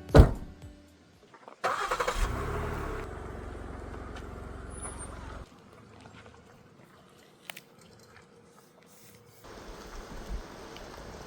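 A sharp thump, then a car engine starting and running for a few seconds before it cuts off abruptly. Near the end, a steady hiss sets in.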